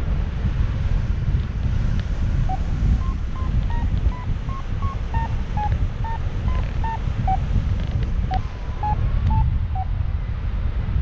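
Airflow buffeting the microphone in flight under a paraglider, a loud steady rumble, with a flight variometer's short beeps, about two or three a second and wavering in pitch, starting about two seconds in and stopping near the end: the vario's climb tone, signalling weak lift.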